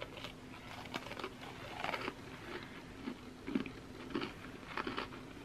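A person chewing a chocolate sandwich cookie (a Java Chip Oreo) with cookie and creme together: quiet, irregular crunches and mouth sounds.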